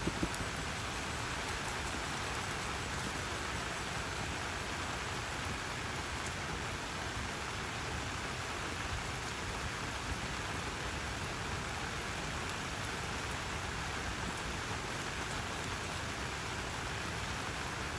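Steady rain falling, an even hiss with no break, with a couple of brief taps right at the start.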